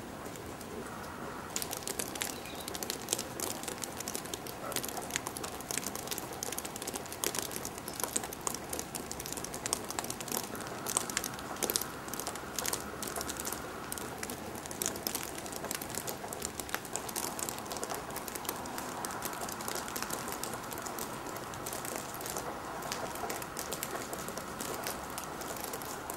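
Footsteps crunching and rustling through dry leaves and twigs: dense, irregular crackling that starts about a second and a half in, with a bird calling faintly.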